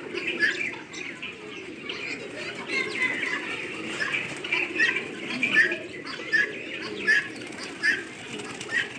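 Many caged birds calling together: repeated short chirps over a low cooing, with wings flapping.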